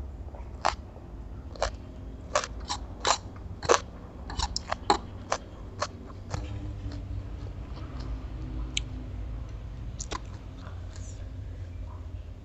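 Close-up chewing and crunching of stir-fried bean sprouts: a quick run of sharp crunches in the first half, then only a few more, over a steady low hum.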